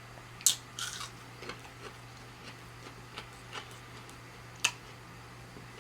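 Close-up chewing of a breaded plant-based buffalo wing: irregular short mouth clicks and crunches, the sharpest about half a second in and another near the end, over a steady low hum.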